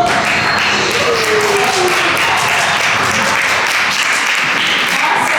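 A group of people clapping, a dense patter of many hands, with a few voices calling out over it.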